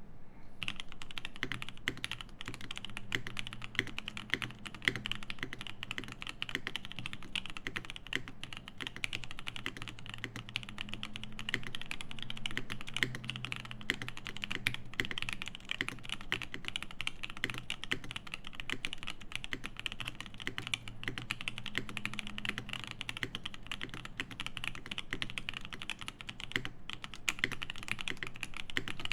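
Continuous fast typing on a Bauer 2 custom mechanical keyboard with a polycarbonate plate, lubed and filmed OP Black switches, lubed stabilizers and GMK keycaps: a dense, steady stream of keystrokes.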